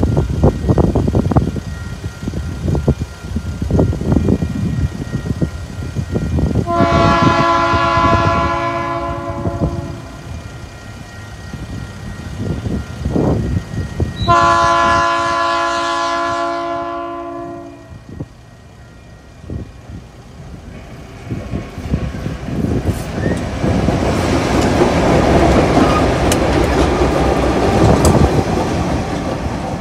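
Two TasRail diesel locomotives running light sound a multi-tone air horn twice, each blast about three seconds long. The locomotives then pass close by with a loud, growing rumble of engines and wheels over the last third. The first seconds hold a gusty low rumble of wind on the microphone.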